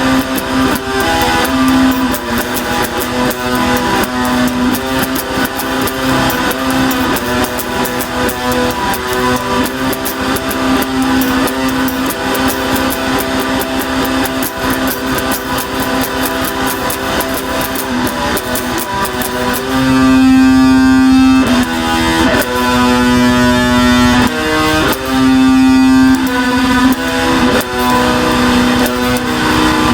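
Loud noise and drone music: a dense, distorted wall of sound over a steady droning note, with a guitar-like timbre. About twenty seconds in it opens into held chords that cut off and come back every second or two.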